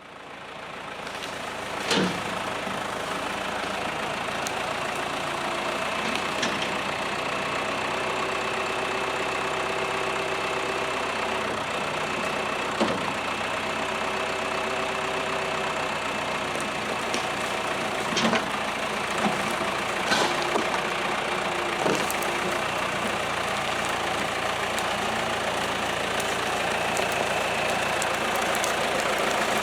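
Tractor engine running steadily. It rises in level over the first couple of seconds, and several sharp knocks and clunks come through it, loudest about 2, 18 and 20 seconds in.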